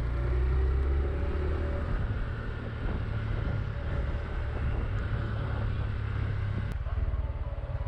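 Honda Hunter Cub's small single-cylinder engine running while the motorcycle rides along, its pitch rising about a second in as it accelerates.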